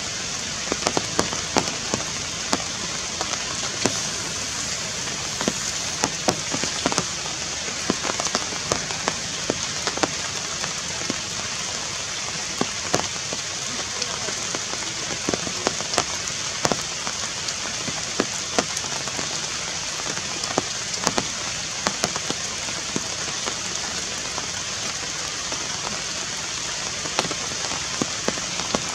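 Steady rain hiss with many drops ticking irregularly, close by and at no even rhythm.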